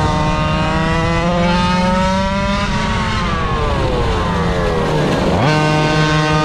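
Small two-stroke engine of a GoPed GoQuad at speed, heard close up from on board. It revs up for a couple of seconds, then eases off, and is opened up again quickly about five and a half seconds in, holding a high pitch.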